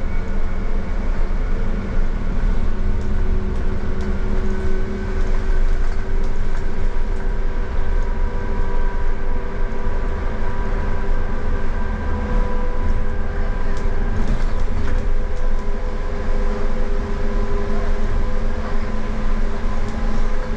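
Tateyama Tunnel trolleybus running through the tunnel, heard from inside the cabin: a steady low rumble of the ride with a steady electric motor whine over it.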